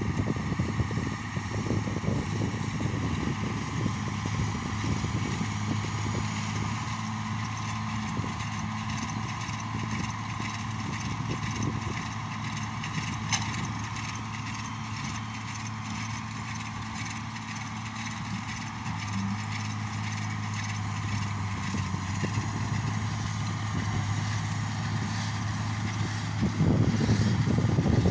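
New Holland T7.200 tractor's six-cylinder diesel engine running steadily as it pulls and drives a McHale Fusion 2 baler-wrapper through silage rows. It gets louder near the end as the outfit comes closer.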